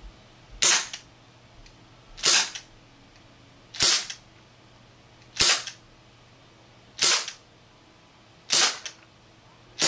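HFC HG132 4-inch airsoft revolver, gas-powered on propane, firing six sharp shots about a second and a half apart.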